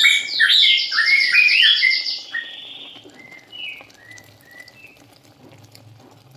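Birds chirping: a loud, dense run of rapid chirps and whistles for about two seconds, then only a few scattered whistled notes, much fainter.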